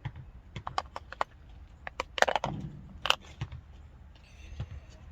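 Irregular clicks and light knocks of small carburetor parts and hand tools being handled, with a louder cluster of knocks a little over two seconds in.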